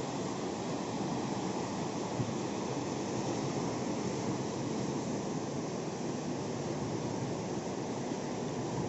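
Suru River's fast, muddy rapids rushing steadily below a footbridge, a constant deep roar of water.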